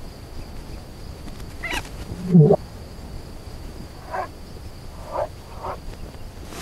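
Film soundtrack played backwards: a low background with a faint steady high whine, broken by a few short voice-like sounds. The loudest of them, about two and a half seconds in, sweeps sharply in pitch.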